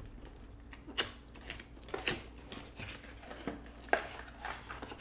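Cardboard display box being opened by hand at its end flap and its packaging handled: scattered light taps, scrapes and crinkles of cardboard and plastic, the sharpest about a second in and about four seconds in.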